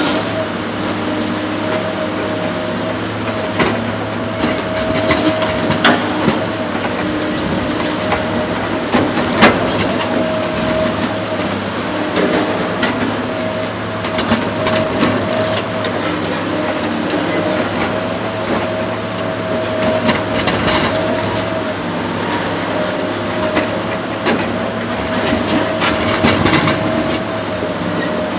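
Heavy diesel demolition excavator running steadily under load, with a faint high whine that rises and falls every few seconds. Scattered sharp cracks and clanks of breaking debris and metal, the loudest about nine seconds in and a cluster near the end.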